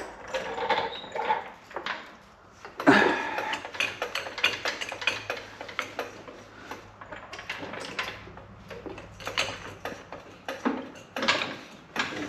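Metal tools and parts being handled, clinking and clanking in irregular clicks and knocks, with one louder knock about three seconds in.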